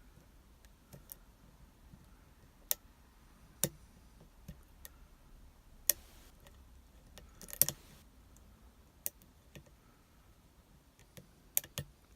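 Scattered sharp metallic clicks, about a dozen at uneven intervals, of a short hook pick and tension wrench working the pin stack of an Abus 72/40 padlock, whose pins include spool pins.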